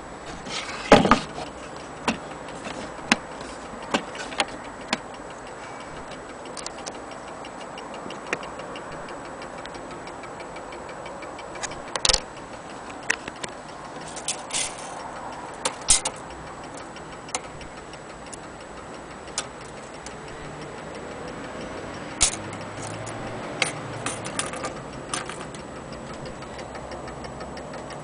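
German HAS (Hamburg American Clock Company) pendulum mantel clock ticking steadily, with occasional louder knocks and clicks on top.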